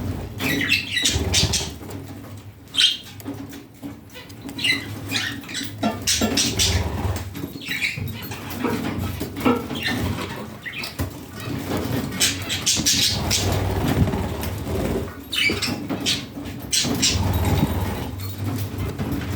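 Budgerigars chirping and chattering: many short, quick chirps and squeaks in an irregular run, over a steady low hum.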